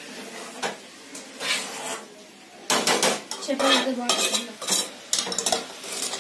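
Metal spoon stirring cabbage and chana dal curry in an aluminium pot, scraping and clinking against the pot in irregular strokes that come thick and fast from about halfway through. Under it, a faint steady hiss of the curry simmering.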